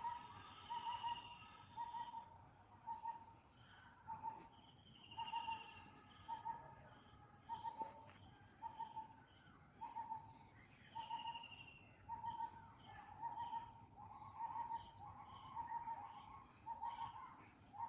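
Outdoor wildlife ambience: a steady high insect drone, with a short hollow note near 1 kHz repeated at a steady pace throughout and a few higher, falling bird calls in between.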